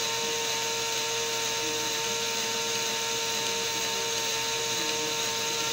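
A Lego model's small electric motor running steadily, turning a train of plastic gears: an even, unchanging whine.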